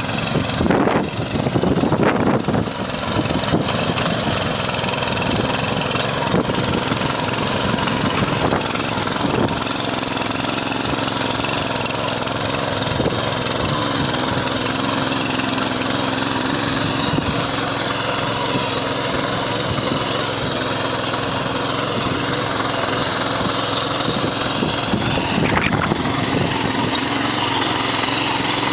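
The 7 hp petrol engine of a Saamy power weeder, a walk-behind rotary tiller, running under load as it tills dry soil. Its level varies for the first few seconds, then holds steady.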